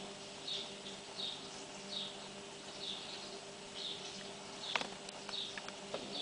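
A short high chirp repeating evenly, about one every 0.8 seconds, from an animal calling. A few sharp clicks come near the end over a faint steady hum.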